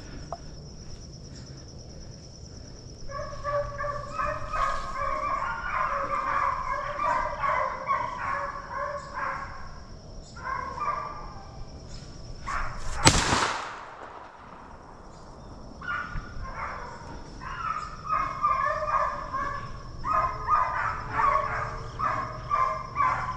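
A pack of deer hounds baying while running a deer, many voices overlapping, dropping away for a few seconds midway and then picking up again. About halfway through a single sharp bang, the loudest sound, cuts through.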